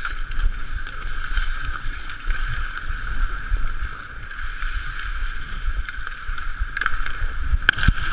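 Ice hockey skating heard from a chest-mounted action camera: skate blades scraping the ice and a steady rumble of movement against the microphone, with a few sharp clacks near the end.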